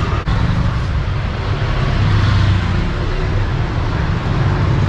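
Street traffic: motor vehicles running and passing close by, a steady low rumble that swells about two seconds in.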